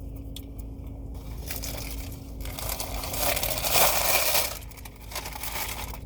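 Food wrapping crinkling and crumpling, a rustling, crackly noise that builds from about a second in, is loudest near four seconds and dies away about a second later.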